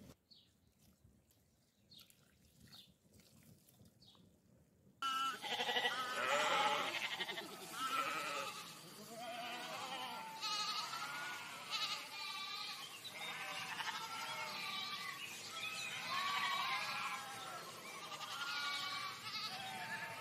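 Very faint for about five seconds, with a few light clicks. Then a pen of lambs and goat kids bleats loudly, many calls overlapping and rising and falling.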